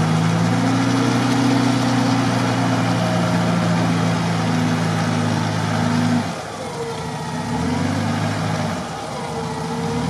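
Mitsubishi Pajero's engine running at steady, raised revs as the stuck SUV is pulled through deep mud on a tow line. The revs drop about six seconds in and pick up again near the end.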